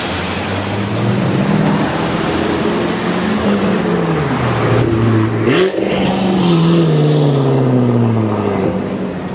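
A performance car's engine running loud on the street. Its pitch dips, changes sharply about halfway through, then falls steadily over the next few seconds, as the engine revs and then winds down or the car passes.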